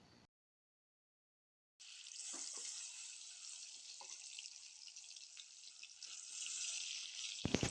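Fish pieces sizzling as they fry in hot oil, a steady hiss with scattered small pops, starting about two seconds in after a moment of silence.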